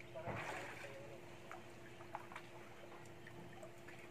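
Swimming pool water lapping softly, with one short splash a moment in and scattered small drips and plops. A faint steady hum runs underneath.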